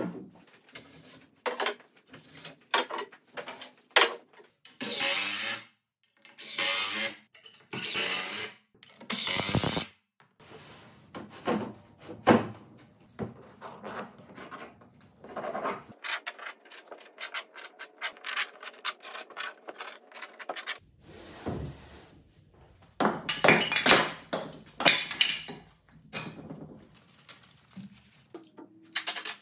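Woodworking shop sounds: sharp wooden knocks and rubbing as lumber is set down and slid on a worktable, and a hammer tapping mahogany plywood dovetail pieces together. A faint steady hum runs for several seconds past the middle.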